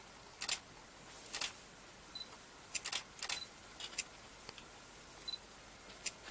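Camera shutter clicking irregularly, several single clicks and some quick pairs, over a quiet background. A few short high-pitched peeps come about every two seconds.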